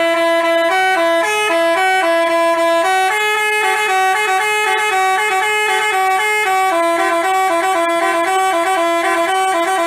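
Basuri multi-tone telolet bus horn playing a quick melody of held notes that step up and down in pitch, cutting off at the end.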